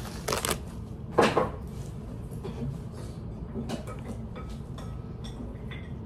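Household knocks at a kitchen counter, with one louder thump about a second in, then light clicks of chopsticks against bowls and a paper cup.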